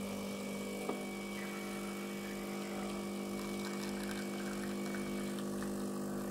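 DeLonghi espresso machine's pump running with a steady hum while espresso streams from its twin spouts into a glass, with a small click about a second in.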